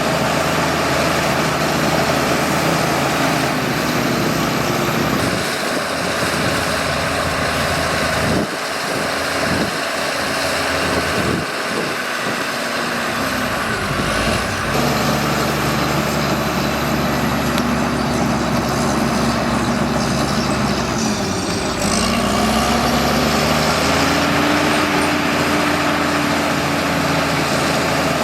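Bulldozer's diesel engine running steadily while working, its note dipping and rising a few times, with a thin high whine gliding up and down.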